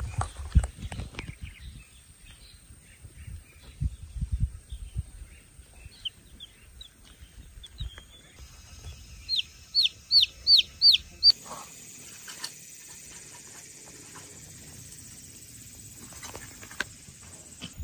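Baby chick peeping: scattered faint high peeps, then a run of five loud, clear peeps about nine to eleven seconds in. A few low thumps come near the start.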